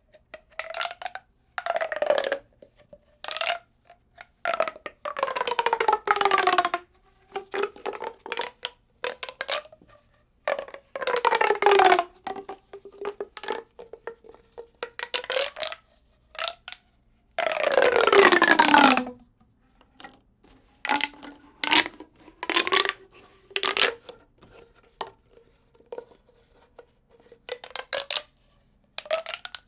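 Expanding tube being handled. It gives repeated crackly bursts, and several longer strokes carry a tone that slides downward in pitch.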